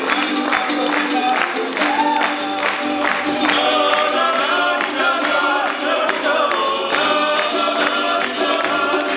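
Live Georgian folk dance music: panduri lutes strummed and voices singing, over a steady beat.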